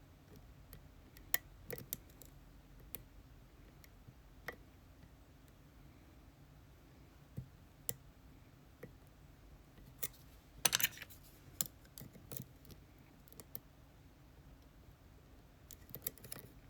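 Small metal tools clicking and scraping in an ASSA Twin Exclusive lock cylinder: scattered sharp clicks, with a quick cluster of them about two-thirds of the way through and a few more near the end.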